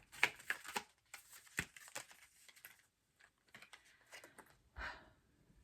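Tarot cards being handled: quick crisp flicks and rustles of card stock as cards are pulled from the deck, with a soft thump near the end as a card is laid down.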